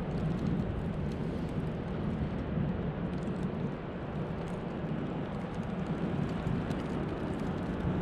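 Blizzard wind rushing steadily over the microphone, a low, even rumbling rush with no clear tone.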